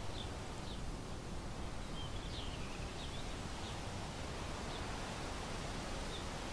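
Steady rushing outdoor background noise with faint, short high bird chirps scattered through it, several close together about two to three seconds in.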